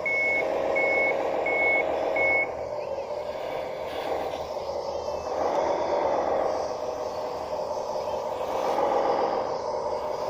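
1:12 scale bulldozer running, its reversing beeper giving four even beeps in the first two and a half seconds. The engine note carries on, rising and falling several times as the dozer works.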